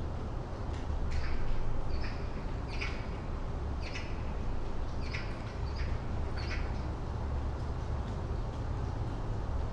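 A bird calling in short, sharp chirps, about seven of them spaced half a second to a second apart, which stop about two-thirds of the way through. Under them runs a steady low rumble of distant city traffic.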